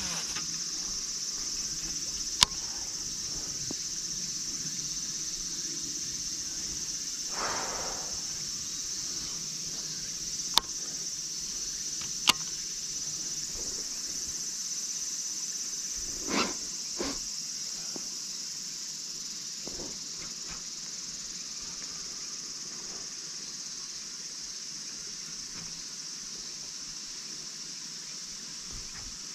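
Insects droning steadily in a high, even chorus. A few sharp clicks and a couple of short softer noises come through now and then.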